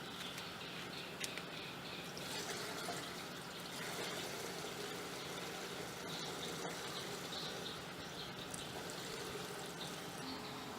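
Faint splashing and trickling of liquid stirred by hand in a container, the chemical solution being mixed.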